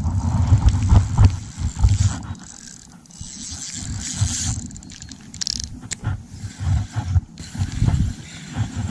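Wind buffeting the microphone in uneven gusts, with scraping and clicking from a spinning reel being cranked and handled while a small bass is reeled in.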